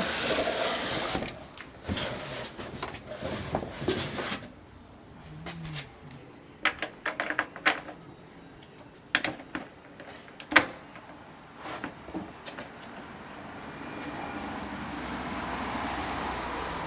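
Handling of a new replacement radiator and its packaging: rustling for the first few seconds, then scattered sharp clicks and knocks, the loudest about ten seconds in. Near the end a steady noise slowly builds.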